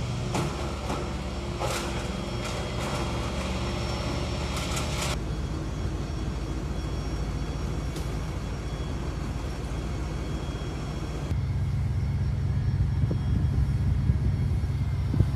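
A steady low rumble that changes abruptly about five seconds in and again after about eleven seconds, with a few sharp clicks in the first few seconds.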